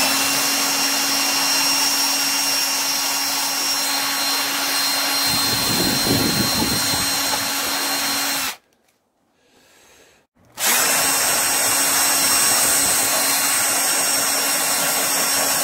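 Electric drill with a drum attachment running at a steady high whine while it shapes and smooths the hardwood of a bow riser, grinding harder into the wood about five to seven seconds in. It stops at about eight and a half seconds and starts again about two seconds later.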